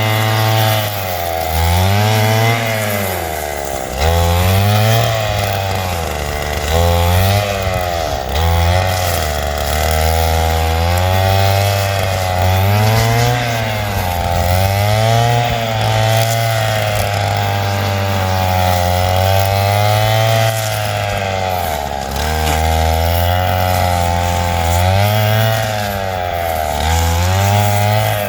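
Stihl FS 160 two-stroke brushcutter running while clearing brush, its engine pitch rising and falling every second or two as the throttle is worked.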